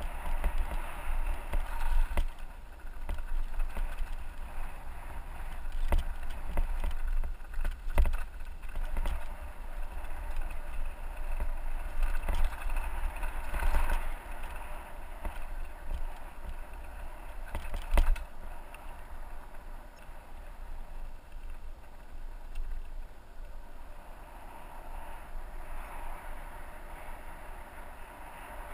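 Tyres rolling over a loose gravel track, heard through wind buffeting the mounted action camera's microphone, with a few sharp knocks from bumps. The rumble grows quieter in the last third as the surface turns to smooth pavement.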